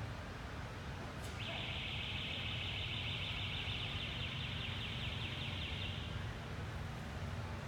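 A high, finely pulsing buzzing trill of an insect that starts abruptly a little over a second in and fades out after about five seconds, over a steady low rumble.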